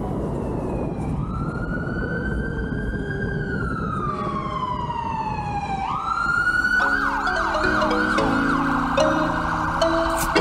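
Emergency-vehicle siren: a slow wail that rises, then falls over several seconds, then switches about six seconds in to a fast yelp. Background music with mallet tones comes in with the yelp, over a low steady rumble.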